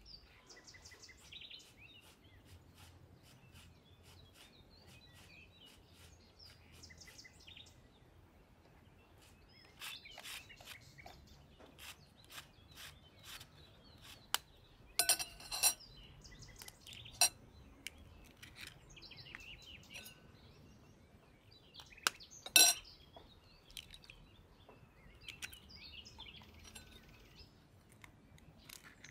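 A handheld metal shredder scraping through a head of cabbage in quick repeated strokes, with birds chirping in the background. Two loud sharp clinks stand out about halfway and about three-quarters of the way through.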